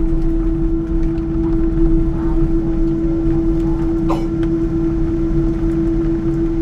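Airliner cabin noise in a Boeing 777-200 taxiing after landing: a steady low rumble with a constant hum. A single short click sounds about four seconds in.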